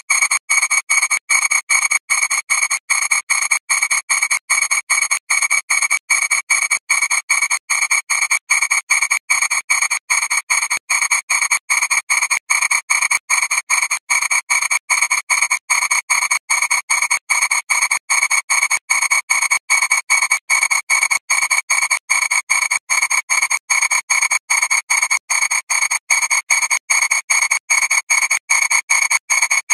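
Harsh, distorted electronic buzzing tone stuttering in rapid, evenly spaced pulses, about two or three a second, unchanging throughout: audio mangled by thousands of repeated video re-exports.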